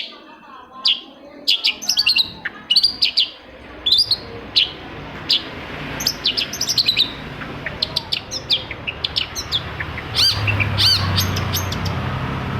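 Long-tailed shrike (cendet) singing: a fast, varied run of short, sharp chirps and whistled notes, some repeated in quick series. A low hum joins underneath near the end.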